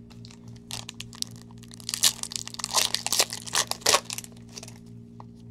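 Foil wrapper of a 2016 Bowman Chrome baseball card pack being torn open and crumpled by gloved hands: a run of crackling crinkles that starts under a second in, is thickest in the middle and stops about a second before the end.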